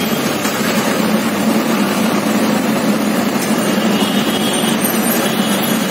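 Steady running noise of a vehicle in motion, heard from inside it, with a constant low hum under an even rushing noise.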